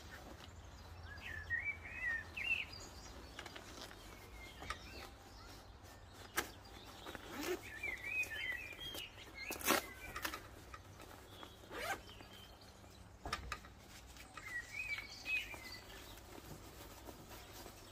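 A songbird singing short warbling phrases, three times, over scattered clicks and rustles as a motorcycle jacket's vent zips and panels are handled.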